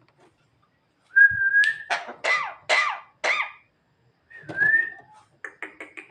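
Javan myna (jalak kebo) vocalising. About a second in it gives a short clear whistle, then four harsh calls that mimic coughing. Near the end come a second whistle and a quick run of short clicking notes.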